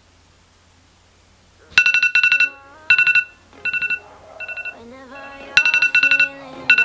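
Smartphone alarm going off: groups of rapid, high electronic beeps repeating about once a second, starting about two seconds in. Softer music-like gliding tones play underneath.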